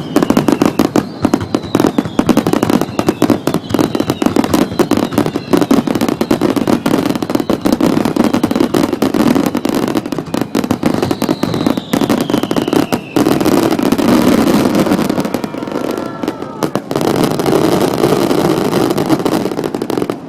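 Fireworks finale: a dense, continuous barrage of rapid bangs and crackle from aerial shells, with a few falling whistles, stopping abruptly at the end. The booms come out distorted through a compact digital camera's microphone.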